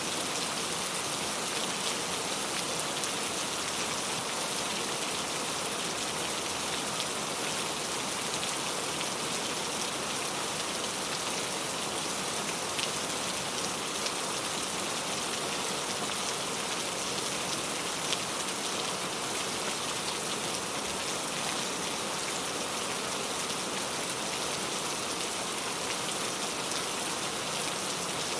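Steady rain falling, an even hiss with fine pattering drops.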